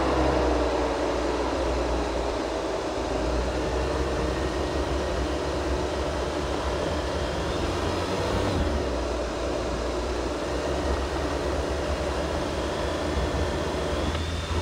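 Jeep Wrangler JL driving on an off-road trail: a steady low engine rumble with a broad hiss of drivetrain and trail noise. A pitched whine drops in pitch and fades away in the first second.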